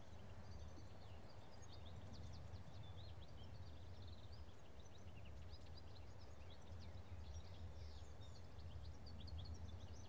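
Faint ambience of small birds chirping over a low steady rumble: many short, high chirps scattered throughout.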